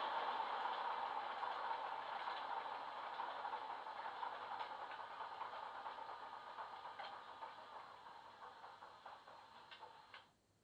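Model Class 47 diesel's DCC sound decoder playing its Sulzer engine sound through a small double iPhone speaker, the stationary loco's engine sound dying away steadily with a few light ticks, then cutting off suddenly near the end.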